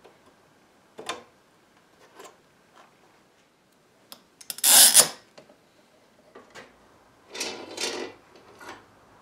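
Metal bar clamps being handled, slid along their bars and tightened: scattered clicks and knocks, with a loud scraping rattle about halfway through and another scraping rattle near the end.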